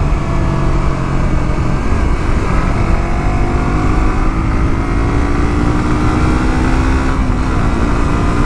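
Suzuki GSX-R150's single-cylinder engine pulling under steady throttle, its pitch slowly rising and dipping briefly near the end before climbing again. Wind rumbles on the microphone at riding speed.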